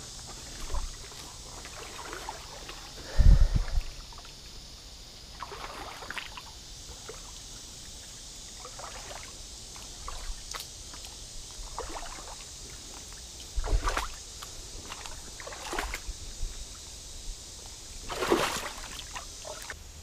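Shallow creek water trickling as a steady hiss, broken by scattered splashes and rustles, with one loud low thump about three seconds in.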